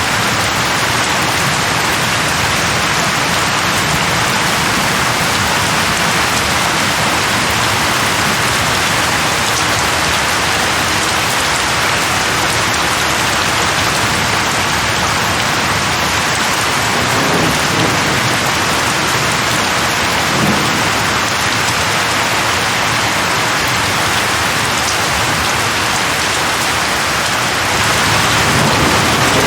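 Steady rain falling, with a low rumble of thunder a little past halfway. The rain gets slightly louder near the end.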